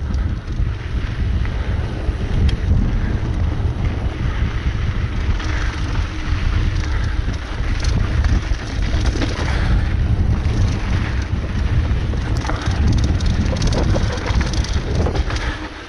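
Wind rumbling over the microphone of a mountain bike riding fast down a dirt singletrack. Tyres crunch on loose dirt and rocks, and the bike rattles in frequent clicks.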